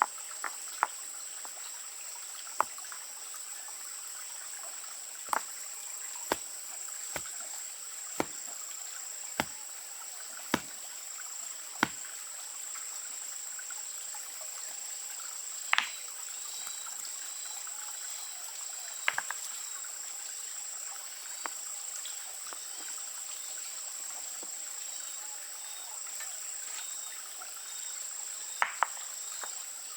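Sharp single knocks, about one a second for the first twelve seconds and then a few scattered ones, over a steady high-pitched insect drone.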